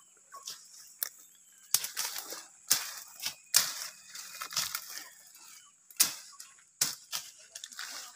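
Dense brush being cleared by hand: a series of sharp cracks and snaps of stems, each followed by a rustle of leaves, roughly one a second.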